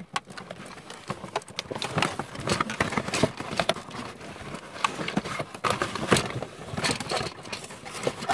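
Cardboard toy box and plastic packaging being handled and twisted, with irregular crackling and knocking as a boxed action figure is worked loose.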